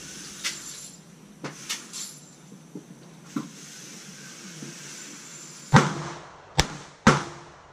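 Light clicks of a pistol being handled, then three pistol shots in the second half, the last two about half a second apart.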